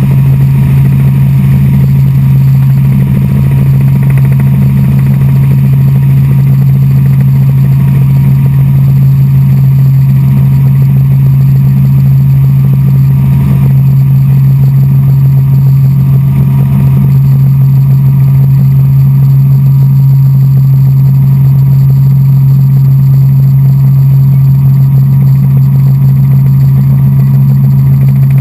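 Helicopter in flight, heard on board: its engine and rotors make a loud, steady drone with a strong low hum that holds unchanged throughout.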